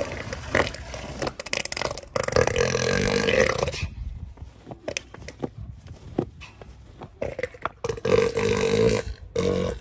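Elephant seals calling while the bull mounts the cow: loud, drawn-out, belch-like calls, one about two seconds in and another near the end, with quieter grunting between.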